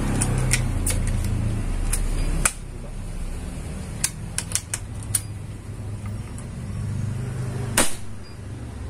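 Metal clicks of a suppressed multi-pump air rifle being handled and cocked, then one sharp shot from it near the end. A passing vehicle's engine hums underneath and drops away about two and a half seconds in.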